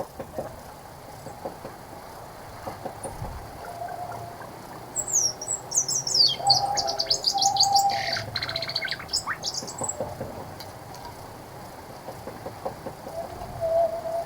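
Wild songbird singing a burst of quick high chirps and falling trills, starting about five seconds in and lasting about four seconds, with lower whistled notes now and then.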